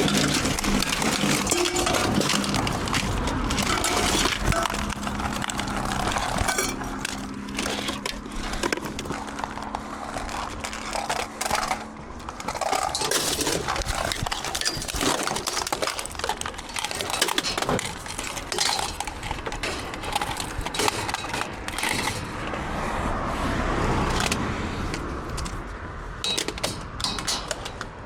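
Scrap metal being handled and loaded: repeated clattering, clinking and knocking of metal pieces, with a steady low hum underneath for roughly the first twelve seconds.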